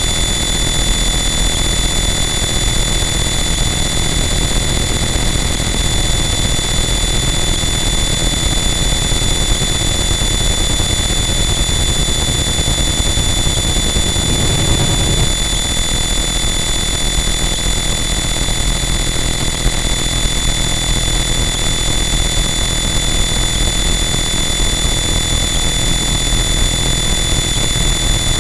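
Harsh noise wall: a loud, static wall of dense distorted electronic noise with a deep rumble underneath and steady high whistling tones on top, barely changing throughout.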